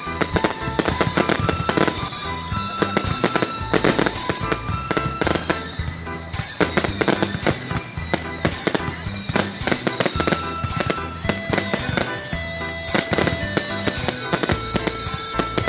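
Fireworks display: shells bursting in rapid, overlapping bangs, with music playing underneath.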